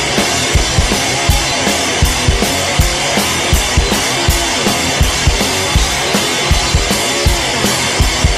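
Rock music played by a band, driven by a steady drum-kit beat with regular kick-drum strikes.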